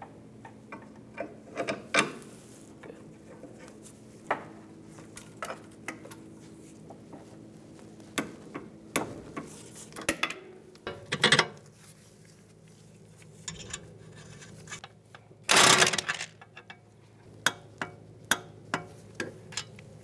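Hand tools on a sway bar link's nut during replacement of the links: scattered clicks and metal clinks of a wrench and ratchet, with a louder burst of rapid ratchet clicking about three-quarters of the way through, over a faint steady hum.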